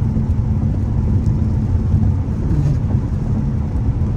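Mercedes-AMG C63's 4.0 V8 engine running at a steady low note while driving, heard from inside the cabin together with road noise.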